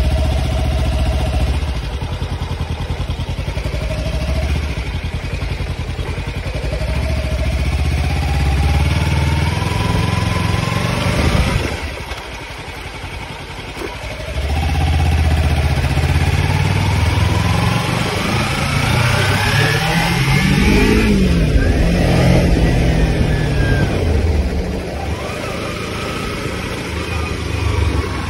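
Kawasaki Ninja 300's parallel-twin engine under way, its revs climbing in several pulls through the gears. The engine drops off sharply about halfway through, then climbs again to its loudest, highest pull and falls away, running lower near the end.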